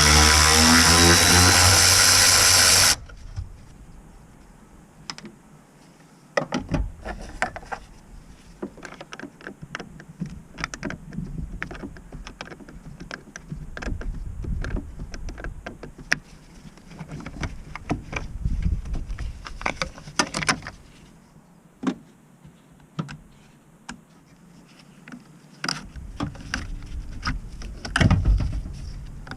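A power tool runs for about three seconds and cuts off. Scattered clicks and knocks follow, from tools and parts being handled during the clutch job.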